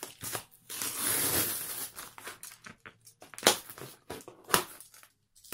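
Brown packing tape slit with a utility knife and peeled off a cardboard box, with a long tearing rip about a second in and rustling of the cardboard. Two sharp knocks follow near the end.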